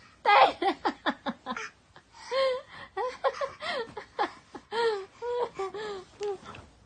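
A toddler laughing: a run of quick, short laughs in the first second and a half, then longer laughing calls that rise and fall until near the end.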